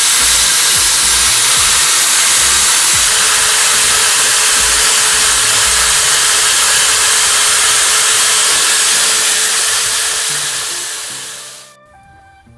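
Electric drill fitted with sandpaper, running steadily and loud with a hissing rasp as it scours rust and dirt from the wheel hub's seat before the new hub goes in. It winds down and stops near the end, leaving faint background music.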